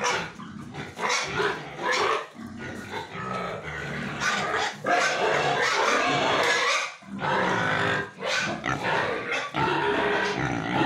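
Pigs in a row of pens grunting and squealing, in long loud stretches with brief breaks.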